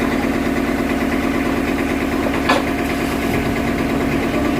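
An engine running steadily, with a single sharp knock about two and a half seconds in.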